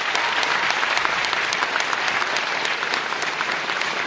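Large audience applauding steadily: dense, even clapping from many hands.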